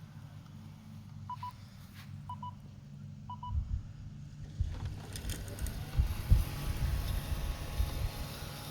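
Roborock RockMow S108 robotic lawn mower giving three short double beeps about a second apart over a low hum. About five seconds in, a louder uneven rumbling noise with a hiss sets in: the noise the mower makes in its PreciEdge edge-trimming mode, which the owner calls terrible.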